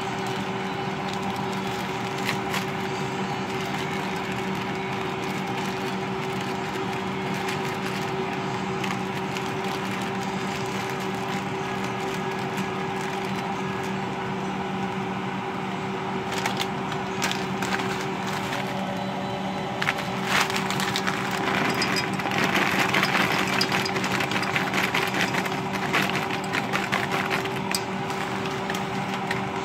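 Plastic food bags crinkling and rustling as corn and peas are shaken out into a pot, with a few clicks partway through and the rustling loudest about two-thirds of the way in. A steady low hum runs underneath.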